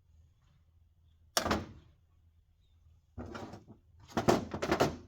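Loose aluminium sheet pieces being handled and dropped: one sharp clank about a second and a half in, then a run of irregular metallic clattering near the end.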